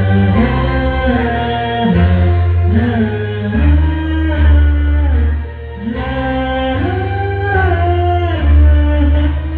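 Music: a song passage with a gliding, bending melody line carried over a heavy bass.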